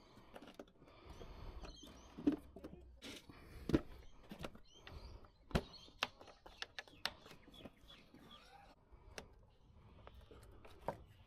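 Irregular clicks and knocks of hand tools and metal parts being handled during a starter replacement, a few of them sharper, with faint chirps in the background.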